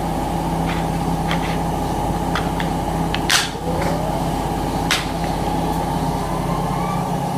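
A steady mechanical hum, with a few light clicks and taps scattered through it and one louder rustling burst about halfway through.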